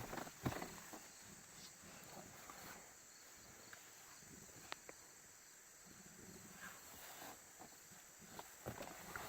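Near silence: faint steady background hiss, broken by a few light taps and knocks, including a sharp click near the middle and a small cluster of knocks near the end.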